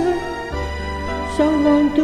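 Slow, tender ballad backing music from a karaoke track: a held melody line over sustained bass notes, with the bass changing about half a second in and the melody stepping to a new note about one and a half seconds in.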